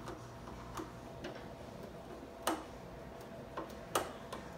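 Screwdriver tip and fingers working at the hard plastic top of a Flowtron bug zapper: a few scattered sharp clicks and taps, the loudest two about two and a half and four seconds in.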